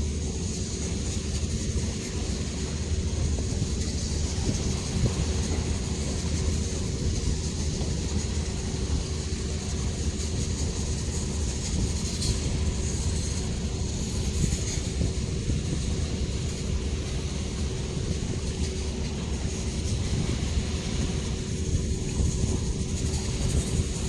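RORO ferry's engines running steadily: a constant low drone with a steady hum over it.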